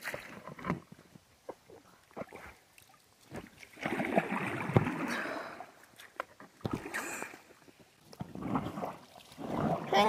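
Double-bladed plastic paddle pulling through river water beside an inflatable raft: two longer swishing strokes, about four seconds in and near the end, between scattered light knocks.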